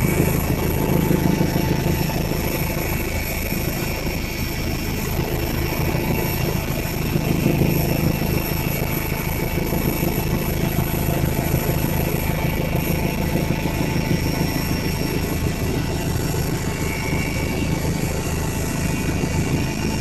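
Helicopter engine and rotor running steadily, a loud continuous drone.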